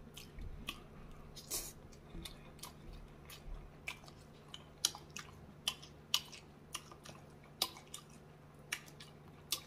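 Close-miked mouth sounds of a person chewing a forkful of seafood in sauce: soft, irregular wet smacks and clicks every half second to a second.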